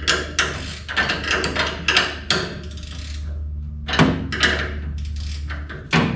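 Ratcheting wrench clicking in quick, uneven runs as it is worked back and forth on a chassis bolt. The ratchet sounds set backwards, so it clicks without turning the bolt loose.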